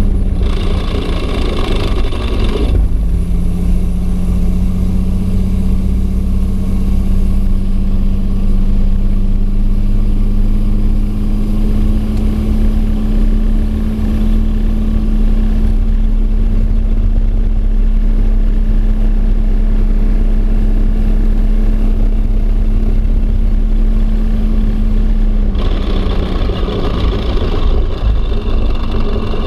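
Cab-interior noise of a truck running on Rockwell 2.5-ton axles: a steady low drivetrain drone with a pitched tone that steps up about three seconds in and drops back near the end, carrying the chatter noise being chased. A rougher, hissier layer comes in during the first few seconds and again near the end.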